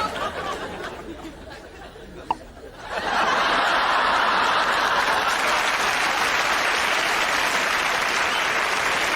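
Audience sounds: light laughter and murmur, a single sharp click, then about three seconds in a sudden, sustained burst of audience applause that holds steady.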